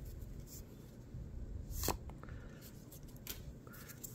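Faint rustling and a few soft clicks of Pokémon trading cards and their booster pack being handled, the clearest click about two seconds in.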